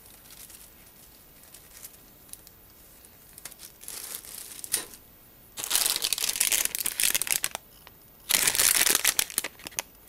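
Clear plastic bags holding plastic model-kit sprues crinkling as hands rummage in the box and lift a bagged sprue out. The crinkling comes in two loud spells in the second half, after a few fairly quiet seconds.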